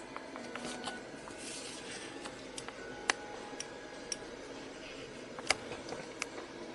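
Light clicks and ticks over a faint steady hiss, with two sharper clicks about three seconds and five and a half seconds in.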